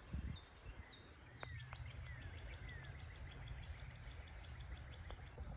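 Songbirds calling faintly: a few short high chirps, then some falling whistled notes and a fast trill of repeated high notes that runs for about three seconds. Under them is a steady low rumble.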